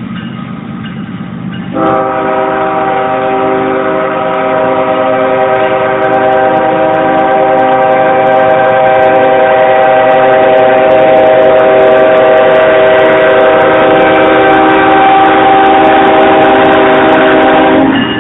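Freight locomotive air horn sounding one long, loud wail, a chord of several notes held steady for about sixteen seconds, starting about two seconds in and cutting off just before the end, over the rumble of the passing train.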